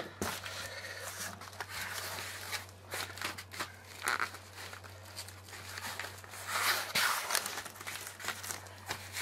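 Hands pressing and sliding over a sheet of EVA foam decking, giving soft rustling and scuffing in a few short bursts, the loudest about four seconds in and again near the seven-second mark. A steady low hum runs underneath.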